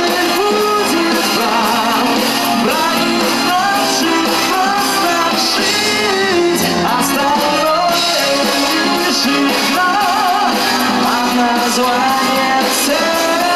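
Live pop-rock song: a male vocalist singing into a microphone over drums, electric guitar and keyboard, at a steady loud level.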